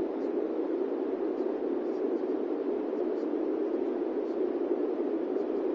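Steady white noise with a dull, low tone, and text-to-speech affirmations mixed in faintly beneath it: a subliminal audio track.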